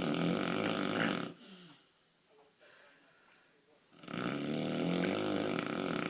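A person snoring very loudly: one long snore ends about a second in, then after a pause of about three seconds a second snore of about two seconds begins.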